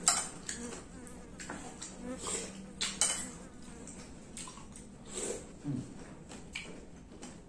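Close-up eating sounds: chewing and lip-smacking, with a few sharp clicks and scrapes of a metal spoon against plates. A faint steady hum sits underneath.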